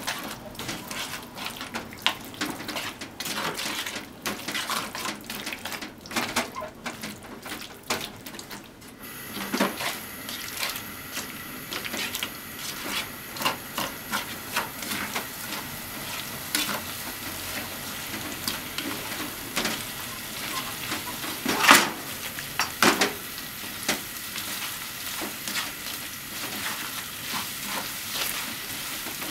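Stir-fried potatoes, onion and pork sizzling in a frying pan while being turned with tongs, the tongs clicking and scraping against the pan. A steadier hiss comes up about nine seconds in, and there is one sharper clack a little past twenty seconds.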